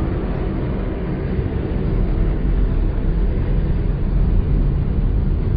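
Steady low rumble of aircraft engines, with no break and growing slightly louder.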